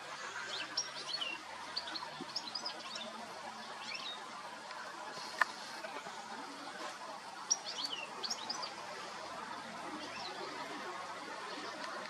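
European goldfinch twittering: short, high chirps in several quick bursts, with one sharp click about five seconds in, over steady outdoor background noise.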